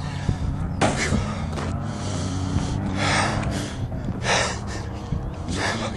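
A man's heavy, uneven breathing with several sharp gasping breaths, the breathing of someone badly shaken and close to tears who cannot get it under control.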